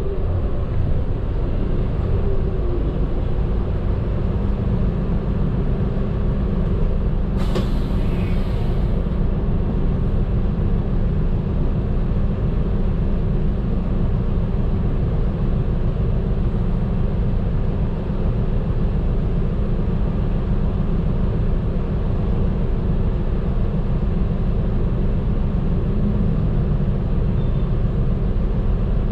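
Medium bus engine running and road noise heard from inside the cabin while driving, a steady low drone, with a short burst of air hiss about seven and a half seconds in.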